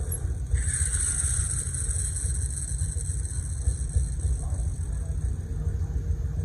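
Car engine running with a steady low rumble, joined about half a second in by a high thin whine that slowly fades; it cuts off abruptly at the end.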